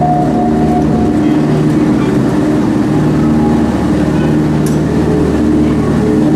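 Safari truck's engine running steadily as it drives along.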